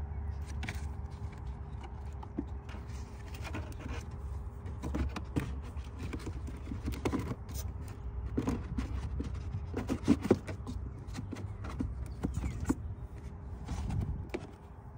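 Irregular plastic clicks, knocks and scrapes as a pleated engine air filter is pushed into the plastic airbox of a Cadillac XT5, over a steady low rumble. The loudest knocks come about ten seconds in.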